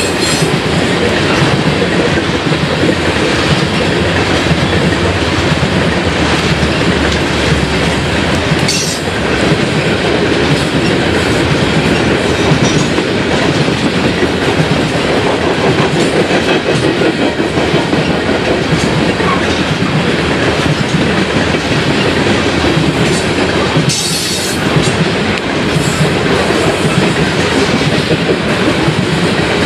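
Loaded coal hopper cars of a freight train rolling steadily past, wheels rumbling and clicking over the rail joints. A few sharp noises stand out from the steady rattle, the clearest about nine seconds in and again around twenty-four seconds.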